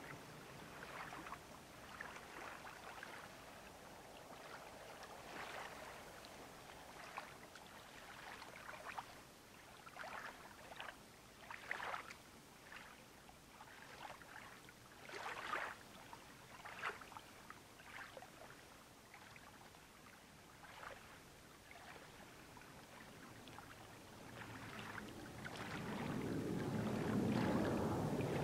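Small waves lapping and splashing irregularly at the lake's edge. About 24 seconds in, the rumble of a jet airliner climbing out grows steadily louder and covers the lapping.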